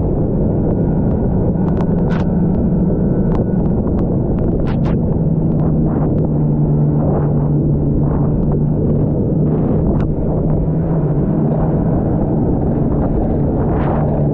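Snowmobile engine running steadily at trail speed, its low drone shifting slightly in pitch, with wind buffeting the microphone and scattered sharp clicks.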